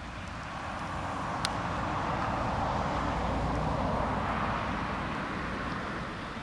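Steam train passing by: a steady rolling rumble that swells to a peak about halfway through and then fades away, with one brief sharp click about one and a half seconds in.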